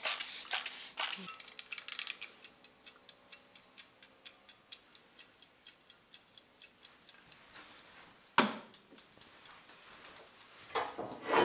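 Small wind-up mechanical kitchen timer: a quick run of clicks as the dial is turned, then even ticking about four times a second as it counts down. A sharp knock about eight seconds in, and another near the end.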